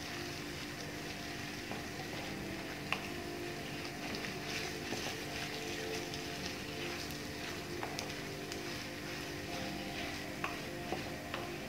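Minced chicken and chopped onion frying in oil in a pan, sizzling steadily while a wooden spoon stirs and breaks up the meat, with a few sharp clicks of the spoon against the pan.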